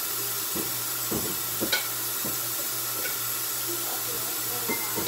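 A utensil scraping and knocking against a cooking pan tipped over a pot, about seven short knocks, the loudest about a second and a half in, over a steady low hum and hiss.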